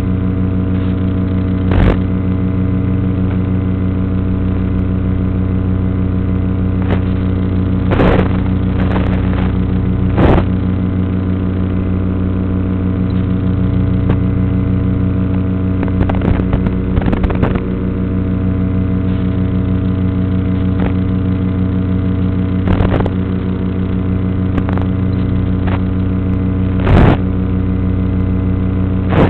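A steady buzzing hum that holds one unchanging pitch throughout, broken by several short crackles.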